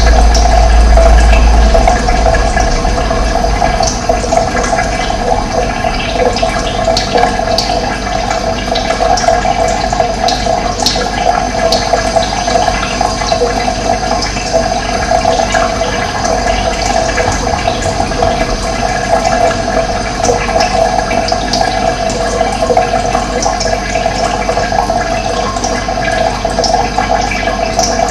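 Running water, a steady rushing and gurgling flow, with a deep low rumble over the first couple of seconds.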